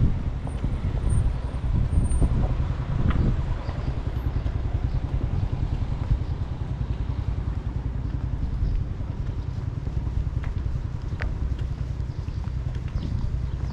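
Wind buffeting the microphone outdoors: a steady low rumble, with a few faint clicks over it.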